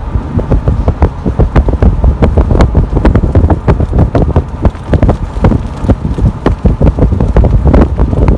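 Wind buffeting the microphone outdoors: a loud, unsteady low rumble with rapid, irregular crackling.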